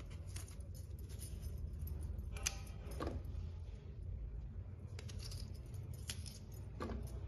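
Kitchen knife slicing Indian gooseberries (amla), with the cut pieces and the blade tapping into a plastic bowl: a handful of light, scattered clicks over a steady low hum.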